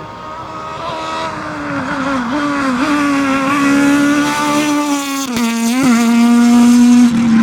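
Rally car's engine running at high revs and growing louder as the car approaches, with two quick dips in revs about five and six seconds in.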